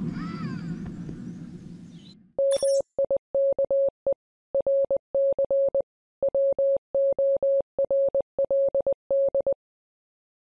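A single steady electronic beep, switched on and off in short and long pulses like Morse code for about seven seconds, then stopping. It follows the RC crawler's drive sound fading out in the first two seconds.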